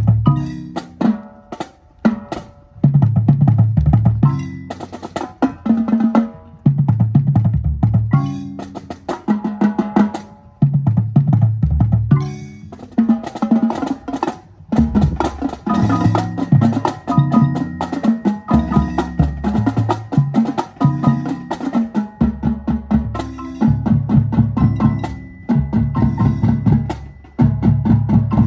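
Drumline performing: marching drums and marimbas playing rhythmic passages together, with low pitched drum notes and wooden mallet-bar notes, broken by a few brief pauses between phrases.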